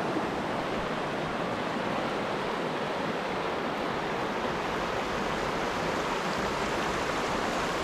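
Shallow rocky mountain stream rushing steadily over riffles and stones.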